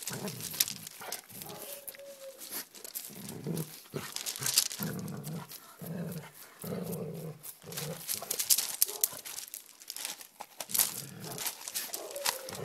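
Doberman giving repeated short, low growls, with a couple of brief whines. Loose gravel clicks and crunches sharply under its paws.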